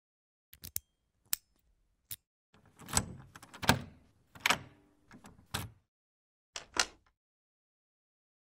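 A flat's wooden front door being unlocked and pushed open: a few light clicks, then from about three seconds in a run of louder knocks and rattles from the lock and door.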